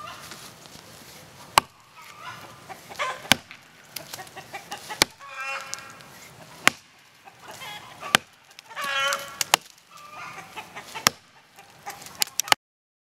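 Axe chopping into the trunk of a black gum tree: about eight sharp strikes, roughly one every second and a half. Chickens cluck between the strokes.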